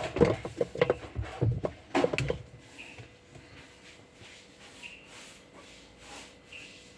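Quick knocks and clatter of parts being handled on a washing machine being taken apart for cleaning. The knocks come thick for about two seconds, then fade to faint rubbing and light taps.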